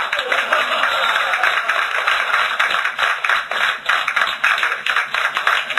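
Audience applauding steadily, with laughter, after a joke's punchline.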